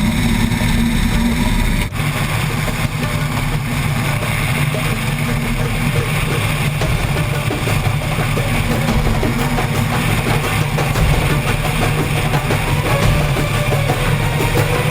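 Rock music with drums and guitar, loud and steady, with a brief dip about two seconds in.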